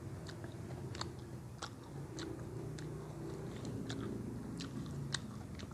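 A person chewing crunchy food up close: irregular crisp crunches and wet mouth clicks, a few each second.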